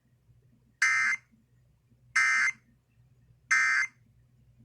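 Emergency Alert System SAME header: three short, buzzy digital data bursts, each about a third of a second long, a little over a second apart. They mark the start of a new alert, here a severe thunderstorm warning.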